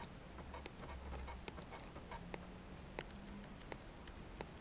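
Faint, irregular clicking of the Nikon Coolpix B700's buttons and control dial being pressed and turned, with a few sharper clicks in the second half.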